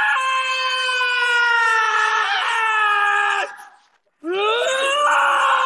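A young male anime voice, isolated from music and effects, screaming a long drawn-out battle cry twice: the first held for about three and a half seconds and slowly sinking in pitch, the second starting low, rising, then held strained and loud.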